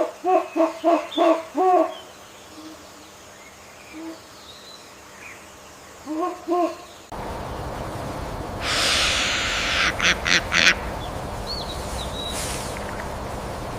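An owl hooting: a quick run of about six pitched hoots, a pause, then two more hoots. After an abrupt cut comes a steady outdoor hiss with a louder rushing patch and a few faint high chirps.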